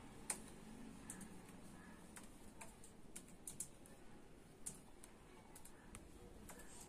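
Faint typing on a laptop keyboard: irregular, scattered key clicks.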